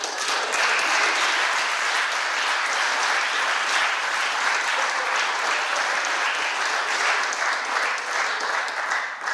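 Audience applause: a dense, steady clatter of many hands clapping, fading near the end.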